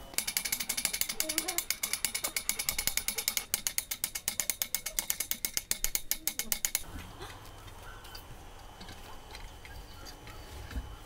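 Hand-cranked winch ratchet clicking rapidly and evenly as a rack of chicken wings is hoisted out of an underground pit oven on its rope, then stopping about two-thirds of the way through.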